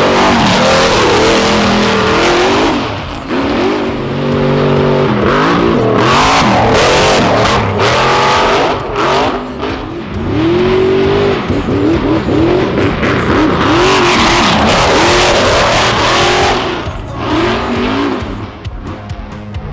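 Rock bouncer engine revving hard in repeated bursts, its pitch climbing and falling back again and again. It eases off briefly near the end.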